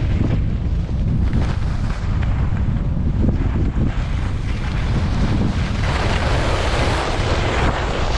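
Heavy wind buffeting the microphone as the rider moves fast down the ski slope. A brighter hiss of snow sliding underfoot swells about six seconds in.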